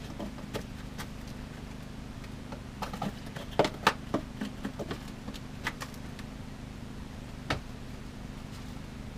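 Light clicks and taps of a seasoning container being handled and a measuring spoon scooping dry ranch dressing mix, with a cluster of taps a few seconds in and one more near the end, over a steady low hum.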